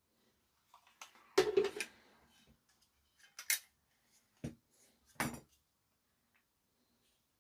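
Handling clatter on a workbench: a burst of knocks and rattles about a second and a half in, then three single knocks over the next few seconds, as small hard plastic or metal parts are picked up and set down.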